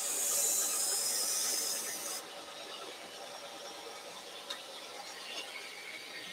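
Knife blade ground against the abrasive belt of a small belt grinder, a loud high hiss that cuts off sharply about two seconds in as the blade comes off the belt. The grinder keeps running after, with a single click about halfway through.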